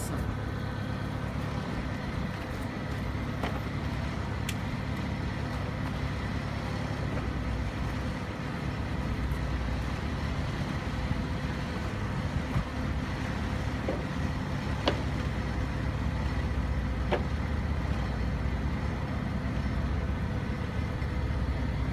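Forklift engine idling steadily, with a few faint clicks over it.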